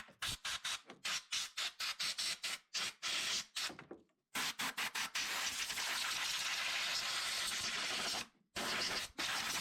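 Compressed-air blow gun hissing in quick short puffs, about four a second, then a steady blast of about four seconds and one last short puff near the end. It is blowing debris out from around the fuel injector ports of a 3.6 Pentastar V6 before the fuel rail comes out.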